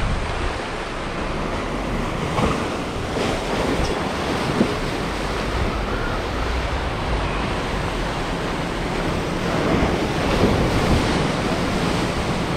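Ocean waves breaking and washing over the boulders of a rock jetty, a steady rush of surf.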